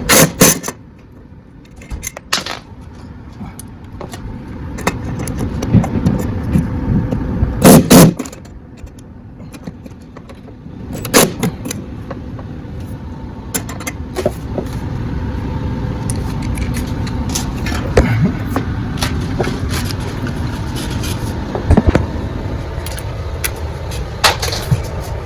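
Knocks, clatter and scraping of small hardware and screws being handled while holders are fitted to a wall, with one loudest clatter about eight seconds in. A steady low rumble runs underneath.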